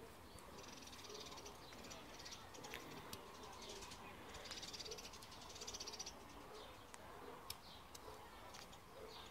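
Faint birdsong: several short trills and a few falling chirps, with a handful of sharp clicks in between.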